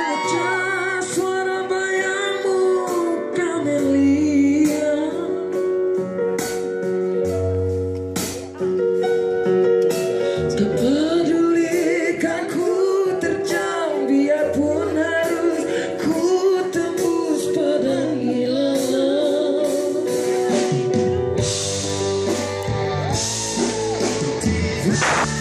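Two vocalists singing a pop song into microphones over a live band of electric guitar and keyboard, with bass and regular percussive strokes.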